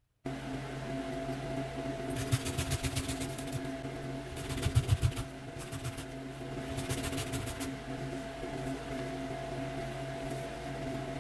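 Fresh ginger being grated on a flat metal hand grater: three spells of quick scraping strokes, about eight a second. Under them runs a steady low electrical hum.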